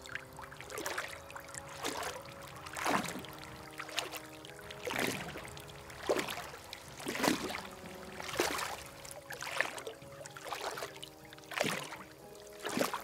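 Pond water sloshing and splashing about once a second as someone wades through it toward the bank, over a steady held music drone.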